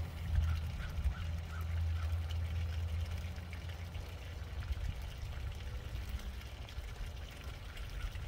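Water pouring steadily from the open drain valve of a travel trailer's 60-gallon fresh-water tank, splashing onto the ground as the tank empties.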